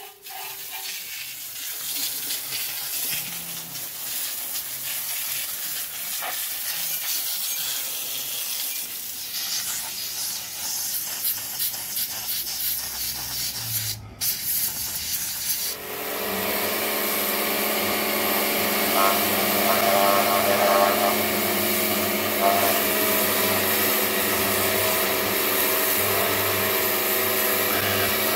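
Handheld steam cleaner hissing steadily as it blasts steam onto an engine block to strip the grime. A short break comes about halfway, and after it a steady machine hum runs under the hiss.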